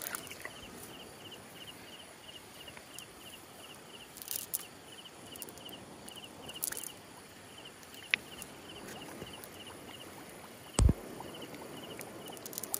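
An insect chirping in a steady, evenly repeated pulse, over light rustles and clicks of a wet cast net being handled. One sharp thud near the end.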